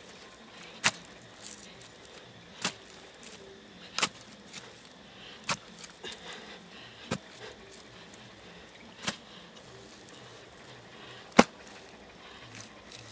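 A digging tool striking down into wet clay soil in a hole: seven sharp, short strikes about one every one and a half to two seconds, the one near the end the loudest.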